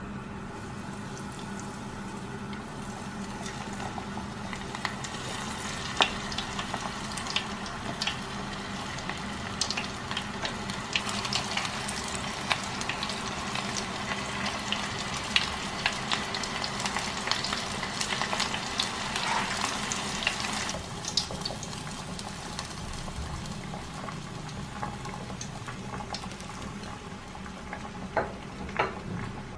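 Food frying in hot oil: a steady sizzle with frequent sharp pops and crackles that thin out about two-thirds of the way through.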